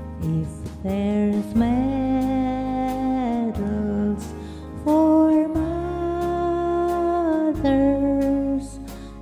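Slow gospel song, with long held vocal notes over a steady low accompaniment.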